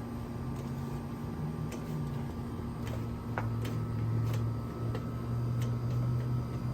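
A few light, irregular clicks and ticks as the sling's spline is pushed evenly into the lounge chair frame's groove, over a steady low hum.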